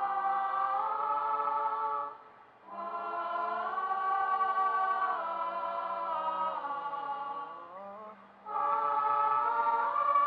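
Choir singing long held chords without words, the pitches gliding slowly between notes. The singing breaks off briefly about two seconds in and again about eight seconds in, between phrases.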